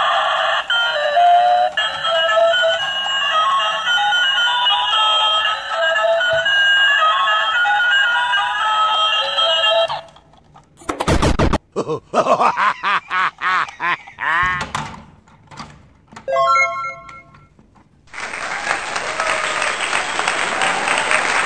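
Battery-powered light-up toy train engine playing a tinny electronic melody of short notes, which stops about ten seconds in. After that come short bursts of electronic toy sounds with sweeping tones and clicks, and near the end a steady buzzing hiss.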